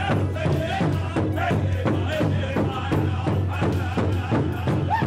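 Several drummers beating a large hide-headed drum in unison with padded beaters, a steady beat of about four strokes a second, with voices singing over it.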